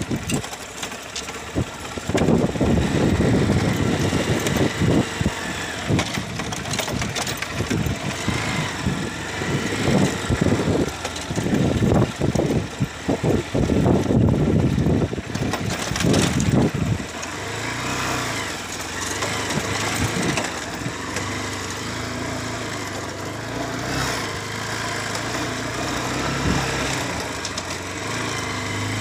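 Motorcycle engine running, with uneven rumbling at first; about 17 seconds in it settles into a steady idle hum.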